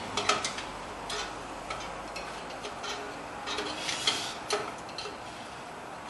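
Screwdriver clicking the star-wheel adjuster of a truck's drum-in-hat parking brake round, notch by notch, to spread the shoes until they drag on the rotor, with a few short scrapes as the rotor is tried by hand.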